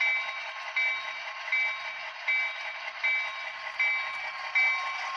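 Model train's sound effects played through a small, thin-sounding speaker: a steady hiss with a ringing, pulsing sound that repeats about once every three-quarters of a second.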